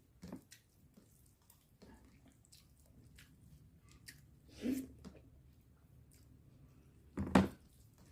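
Close-miked eating of chicken curry with masala poori: small wet mouth clicks and chewing, with two louder squelches, about four and a half and seven seconds in, the second the loudest.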